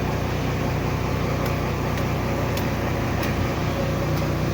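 JCB backhoe loader's diesel engine idling steadily, with a few faint clicks over it.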